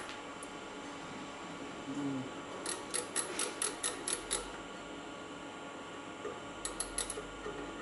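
Ratchet thimble of a three-point internal bore micrometer clicking as it is turned in the bearing bore. The ratchet slips as the anvils seat against the bore wall. There is a run of about seven quick clicks, about five a second, then four more near the end.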